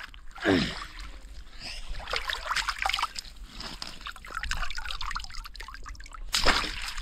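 Water trickling and dripping out of a bamboo polo fish trap lifted from shallow water, with small splashes and light knocks as a hand reaches in for the trapped fish; a louder splash comes near the end.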